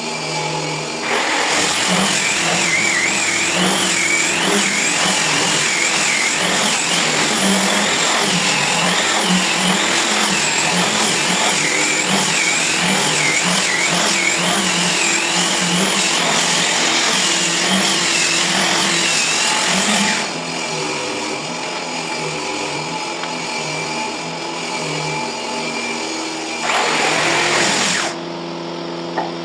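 Electric angle grinder working wood, running loud under load with a wavering high whine for most of the first twenty seconds, then easing off, with one more short burst of grinding near the end.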